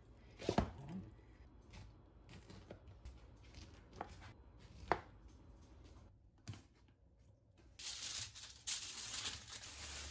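A kitchen knife cutting through cored pineapple on a plastic cutting board, with a few separate sharp knocks of the blade on the board. About eight seconds in, a louder stretch of rustling and crinkling begins.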